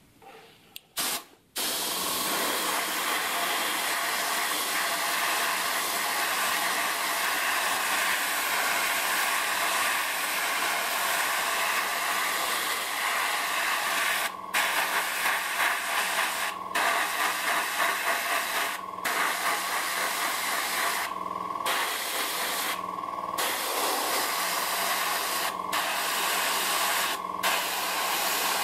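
Airbrush spraying paint: a steady hiss of air and paint that starts about a second and a half in, with a faint steady hum underneath. In the second half the spray stops for a moment about seven times and starts again.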